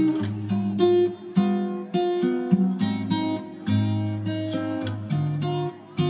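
Background music: acoustic guitar playing plucked notes over a changing bass line.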